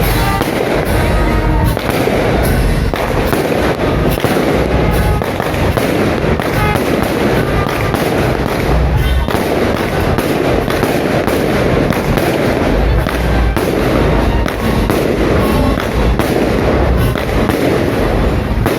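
Aerial fireworks display: a dense, continuous barrage of bangs and crackles with deep booms underneath.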